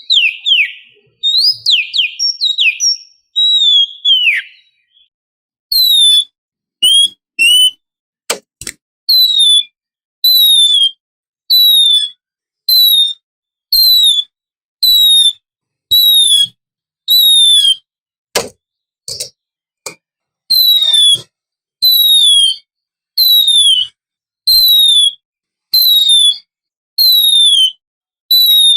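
Oriental magpie-robin (kacer) lure song: a few seconds of varied whistled phrases, then a short falling whistle note repeated about once a second. Two sharp clicks cut in, at about eight and eighteen seconds.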